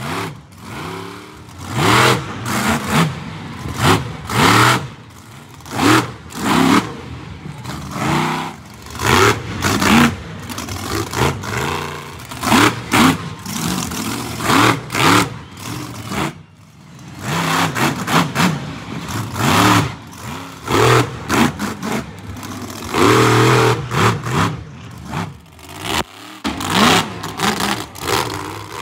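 Monster truck engines revving hard in repeated short bursts, the pitch rising and falling with each blip, with sudden breaks between bursts.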